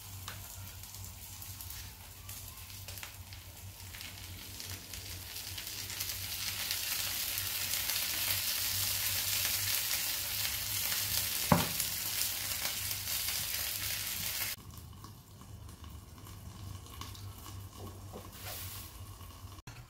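Potato-chip, egg and cheese pancake sizzling in a nonstick frying pan, the sizzle growing louder partway through, with one sharp click. About fifteen seconds in the sizzle drops abruptly to a quieter level.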